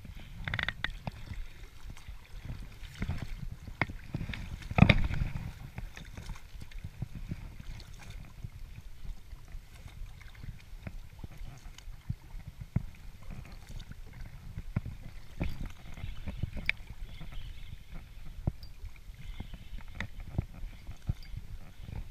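Lake water lapping and sloshing against an inflatable belly boat, with scattered clicks and taps from a spinning rod and reel being handled and wound, and one sharp thump about five seconds in.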